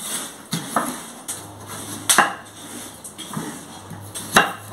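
Kitchen knife slicing through a white onion and knocking on a wooden cutting board: several irregular sharp knocks, the loudest about two seconds in and near the end.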